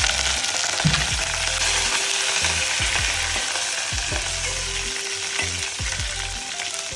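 A tempering of mustard seeds, cumin, fenugreek, dried red chillies and curry leaves sizzling in hot oil in a pan, easing off slightly toward the end.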